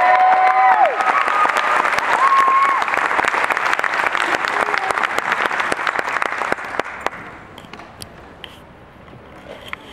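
Audience applauding, with a few voices calling out near the start; the clapping dies away about seven seconds in.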